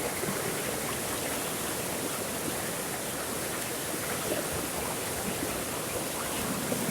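Flowing water: a steady, even rush of running water, like a small stream or cascade.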